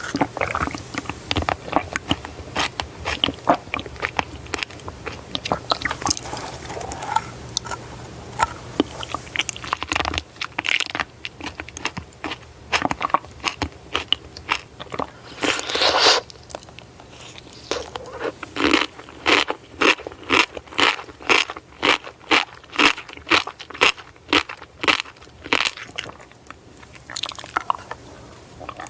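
Close-miked eating: crisp crunching bites and wet chewing, settling in the second half into a steady run of chews about two a second.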